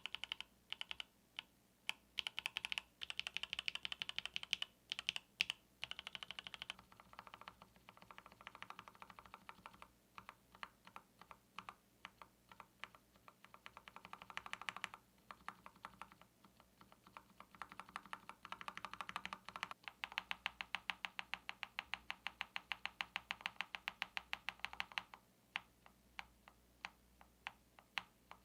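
Keystrokes on a KBD67 Lite R2 custom mechanical keyboard built with Gateron Yellow linear switches, keys clicking one after another. About seven seconds in the sound turns lower and duller as the test moves to the stabilized keys, pressed over and over, with a fast steady run of presses about two-thirds of the way through.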